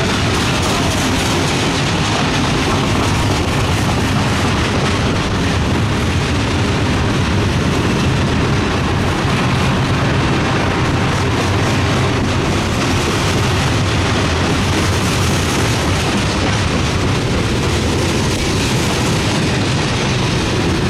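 Freight train cars rolling past close by: a steady, loud rumble of steel wheels on the rails that does not let up.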